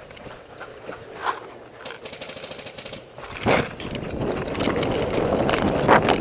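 Paintball markers firing in rapid strings of pops. From about three and a half seconds in, a louder rough rush of movement joins them as the player runs forward across dirt with gear rattling.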